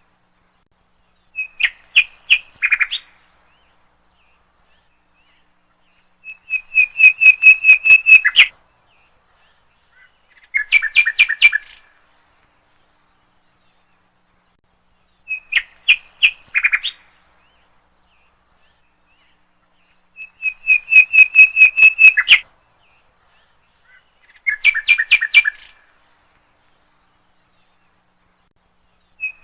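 Songbird chirping in short bursts of rapid, high notes, a few seconds apart. The same three phrases repeat about every 14 seconds, like a looped recording.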